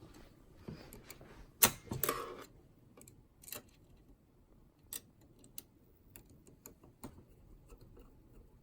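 Hard drive being fitted into a PC case's drive bay: a sharp knock about one and a half seconds in, a short scrape of metal parts, then scattered light clicks and ticks.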